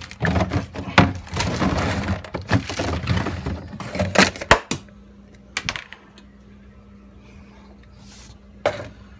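A plate-covered ceramic bowl being picked up and carried, with clattering, clinks and knocks of crockery for the first half. Then it goes quieter under a low steady hum, with a sharp knock near the end.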